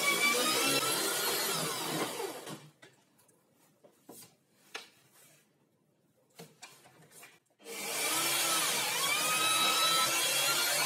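Corded electric drill turning a hole saw through a dark laminated plywood board, the motor's whine dipping and recovering in pitch as the teeth bite. About two and a half seconds in it stops, leaving a quiet gap with a few light knocks, and near eight seconds in it starts cutting again.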